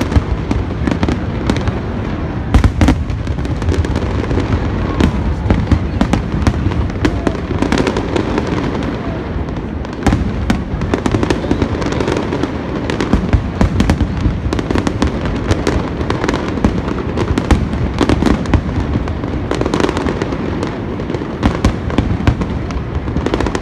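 Aerial fireworks display: shells bursting in quick, irregular succession, many sharp bangs a second over a steady low rumble.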